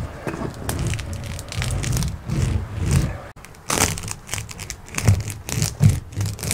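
Woven lauhala matting crinkling and crackling as it is pressed and handled against the ceiling, with several sharp clicks.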